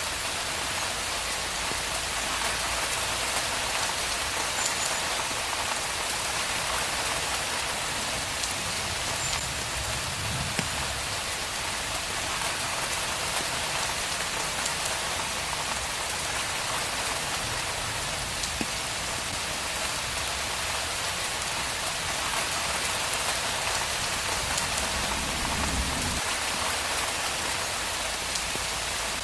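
Steady, heavy rain falling, an even dense hiss of raindrops, with a faint low rumble twice, about ten seconds in and near the end.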